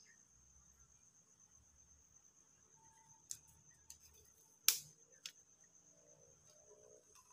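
A steady high-pitched drone of crickets or similar insects, with four sharp clicks or knocks in the middle; the loudest click comes just before five seconds in.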